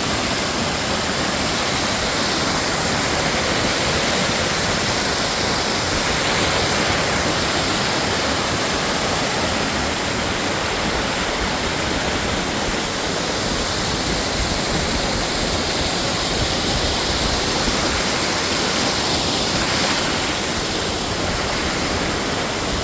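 Water fountain splashing steadily, a loud even rush of falling water.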